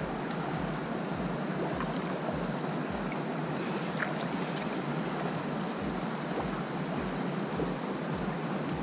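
Steady rushing of a small river's current, with wind buffeting the microphone.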